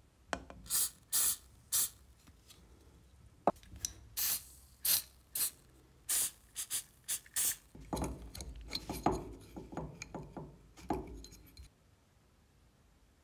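Aerosol spray can hissing in about ten short squirts onto a vacuum cleaner's aluminium fan impeller and electric motor. After that come a few seconds of softer rubbing and small knocks as the metal parts are handled.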